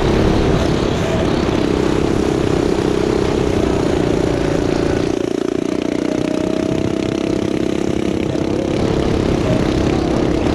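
Turbocharged, fuel-injected Predator 420cc single-cylinder engine on a go-kart running hard through a lap, a loud steady drone. The higher part of the sound drops back for a few seconds in the middle.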